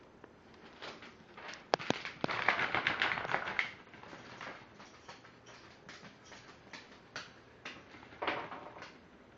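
A Shih Tzu's dog shoes tapping and clattering on a parquet floor as he walks: a quick run of clicks about two seconds in, scattered taps after, and another short cluster near the end.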